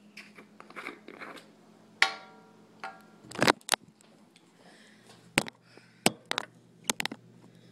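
Handling noise from a phone being moved around and gripped: a series of sharp knocks and clicks, with a couple of brief pitched squeaks in the first half, over a faint steady low hum.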